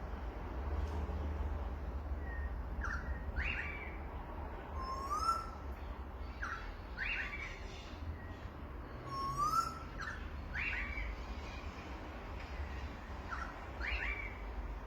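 Wild Australian birds calling, with a phrase that repeats about every four to five seconds: a rising whistle, then high sharp notes and short upward-sweeping notes. A steady low rumble runs beneath.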